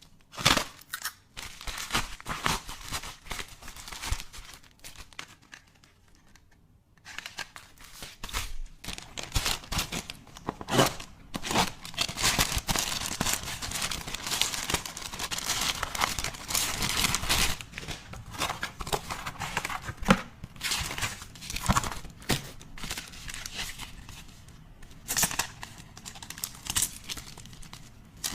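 Packaging being handled and opened: crinkling and tearing with scattered clicks and taps, pausing briefly about five seconds in, then busiest through the middle.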